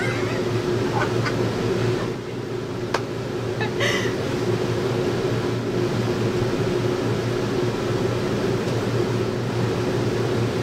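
Steady mechanical hum, like a fan or blower running, with a couple of brief knocks about three to four seconds in.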